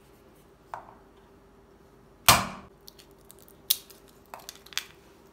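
Walnut shells being cracked open: one loud crack a little over two seconds in, then several smaller cracks and clicks as the shells split and pieces fall.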